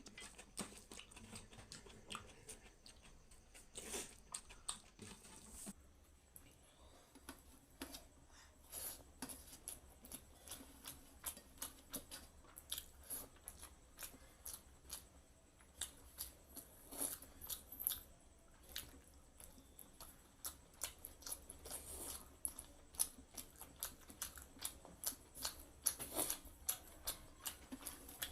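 Close-miked chewing and wet mouth sounds of someone eating a meal of curry, rice and salad, with a fast run of small smacks and clicks, several a second.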